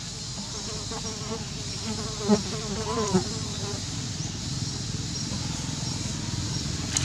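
A flying insect buzzing close by, its pitch wavering up and down for the first few seconds. A brief knock comes a little past two seconds in, over a steady background hiss.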